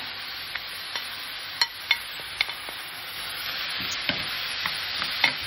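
Chopped onion, pepper and garlic sizzling in olive oil in a frying pan as frozen basil and cilantro stems go in and a silicone spatula stirs them. The sizzle grows a little louder about three seconds in, with a few sharp taps against the pan.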